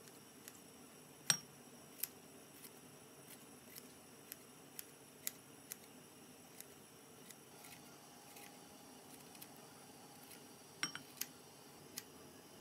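Kitchen scissors snipping kimchi into a glass bowl: a run of short, sharp snips and clicks at uneven spacing, the loudest about a second in and a quick cluster near the end.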